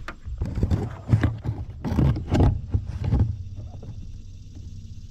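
A run of irregular thumps and knocks on a bass boat's deck for about three seconds, then a quieter, steady low rumble.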